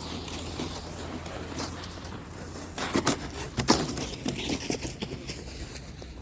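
Footsteps crunching in thick snow, irregular, with two louder crunches about three and three and a half seconds in.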